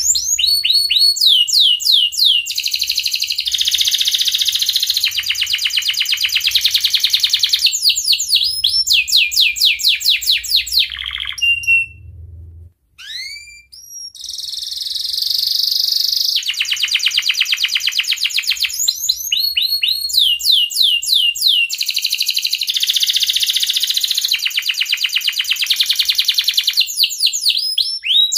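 Domestic canary in breeding condition singing a long, high-pitched song of fast rolling trills and repeated downward-sweeping notes, with a brief break about halfway through before it starts again.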